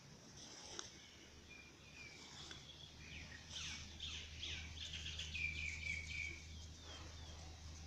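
Small birds chirping: a run of quick, short high calls that ends in a brief trill about three quarters of the way through, over a faint steady low hum.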